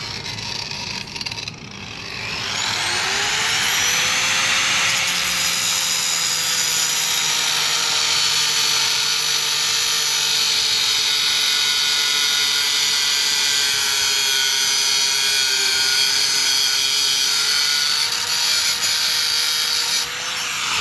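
Angle grinder with a cutting disc and no guard cutting through a steel spanner. The motor spins up about two seconds in, then cuts steadily with a loud, hissing screech of disc on metal, its pitch wavering slightly under load, and the cut changes abruptly near the end.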